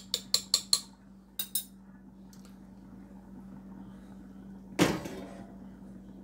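Metal spoon tapping against the rim of a small stainless-steel saucepan of beans, quick clinks about five a second that stop within the first second, then two more taps. Near the end one louder clank of metal on a hard surface, with a short ring, over a steady low hum.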